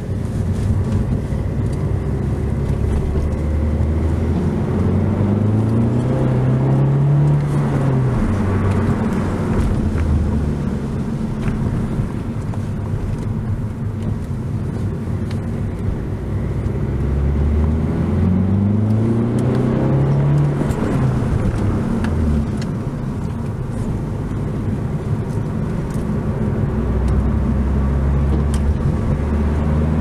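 Alfa Romeo Giulietta 1.6 JTDm-2 four-cylinder turbodiesel heard from inside the cabin while driving, its electric exhaust bypass valve closed. The engine note rises twice as the car pulls through a gear, dropping at each shift, and starts rising again near the end, over steady road noise.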